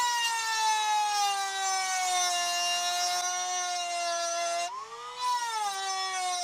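Handheld rotary tool with a small burr milling metal off a bearing housing's mounting pads. It makes a high motor whine that sags in pitch as the burr bites, drops sharply near the end, then picks back up and settles.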